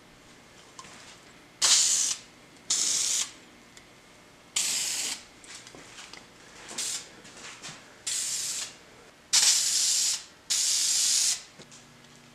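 Aerosol can of Deft clear gloss lacquer spraying in seven short hissing bursts, each about half a second to a second long, one of them much briefer, with faint light clicks between.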